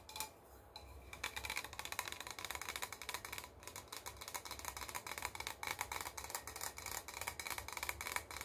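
Rapid fingernail tapping on a shiny metal tumbler, starting about a second in and running on as a dense, fast patter of light clicks with a faint metallic ring.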